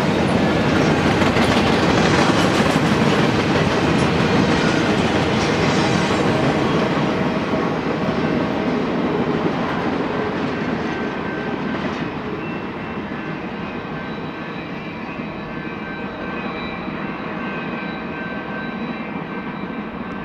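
Double-stack intermodal freight train's well cars rolling by on the rails with a steady clatter and rumble, which fades from about halfway through as the end of the train moves away. A faint high whine lingers in the second half.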